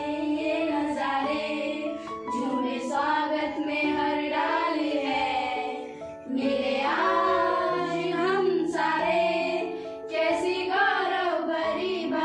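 A small group of schoolgirls singing together in unison over instrumental accompaniment with steady held notes, with a short break between phrases about halfway through.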